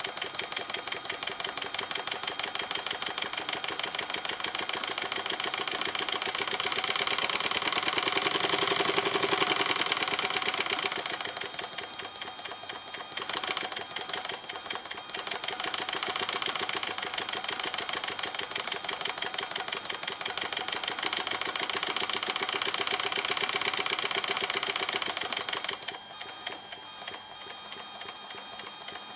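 Electric motor of a 1/10 scale Markie model engine driving its belt and moving works with a rapid, even mechanical clatter. It is loudest about a third of the way in, dips briefly, runs steadily again, and falls away about three seconds before the end.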